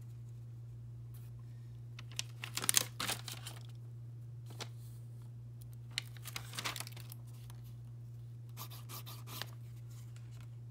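Trading cards in plastic sleeves being handled, crinkling and rustling in three short bursts, the loudest about two to three seconds in, over a steady low hum.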